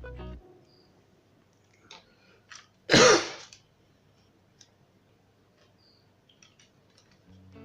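One short cough about three seconds in, with a few faint clicks just before it.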